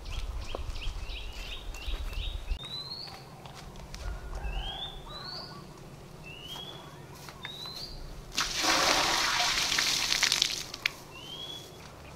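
Water poured from a clay pot into a stone pond, splashing for about two seconds near the end. A bird repeats a short rising call several times.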